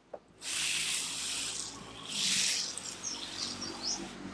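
Yellow hand-pump pressure sprayer spraying liquid onto the soil of seed pots to soak the surface, in two bursts: the first about a second and a half long, the second shorter, just after it.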